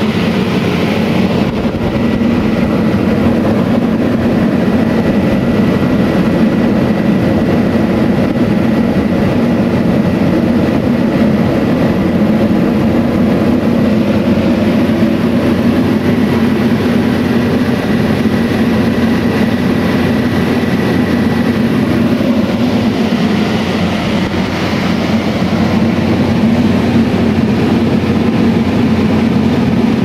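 Old HVAC system running with its high-velocity fan: a loud, steady rush of air and machine noise with a low hum underneath. A faint high whine sits over it and fades out about two-thirds of the way through.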